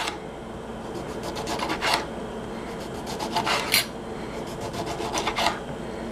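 Knife sawing through a lemon on a cutting board: rasping strokes in three short bursts.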